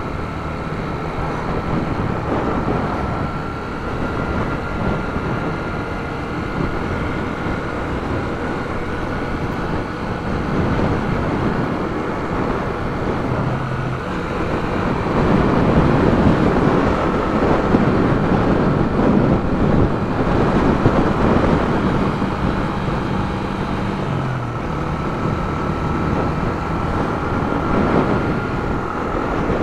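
Yamaha YB125SP's single-cylinder four-stroke engine running at cruising speed, its pitch stepping a couple of times as the revs change, under rushing wind noise that grows louder about halfway through.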